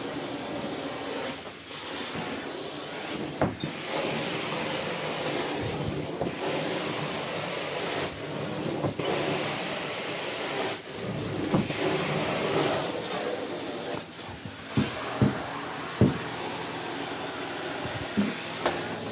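Carpet-cleaning extractor running, its vacuum pulling through a wand worked across the carpet in strokes, the suction noise dipping briefly every few seconds. A few sharp knocks come in the last few seconds.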